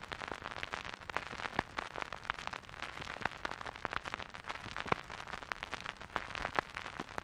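Turntable stylus riding a spinning vinyl record: a steady hiss of surface noise with many small irregular crackles and pops.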